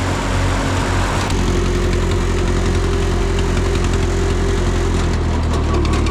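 Engine running steadily at a low, even pitch, its note shifting slightly about a second in and again about five seconds in.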